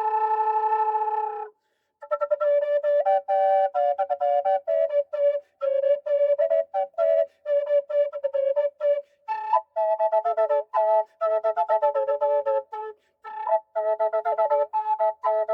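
Native American style double drone flute, in G minor with a G/C drone, playing a slow melody over its drone. It opens on a held note, then runs through many short tongued notes separated by brief breaths, with two or three tones sounding together.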